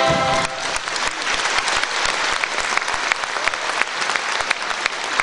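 A concert audience applauding: many hands clapping together. In the first half second the brass band's final chord cuts off.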